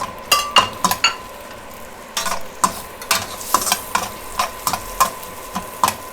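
Chopped onion sizzling in oil and butter in a pan while being stirred, with irregular sharp knocks and scrapes of the stirring utensil against the pan.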